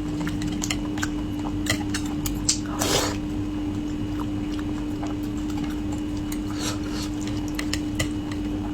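Close-miked eating of braised fish: small wet mouth clicks and smacks while chewing, with one short slurp about three seconds in, over a steady hum.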